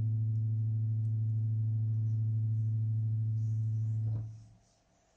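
A low chord held on an electronic keyboard, sounding at a steady level, then released about four seconds in and dying away quickly.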